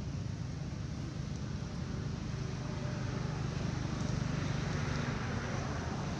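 Steady low, motor-like rumble under an even hiss, a little louder in the second half.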